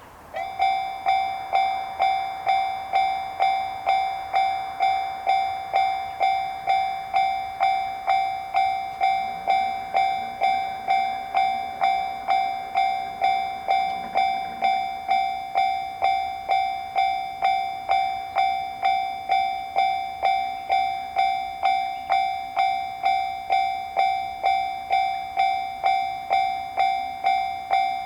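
Japanese railroad crossing warning bell switching on and ringing the typical 'kan-kan' alarm: one clear tone struck about every 0.6 seconds, ringing between strikes. It signals that a train is approaching.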